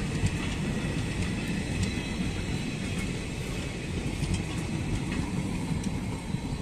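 Passenger train coaches rolling past on the adjacent track: a steady rumble of steel wheels on the rails with faint clicks, easing a little near the end as the last coach goes by.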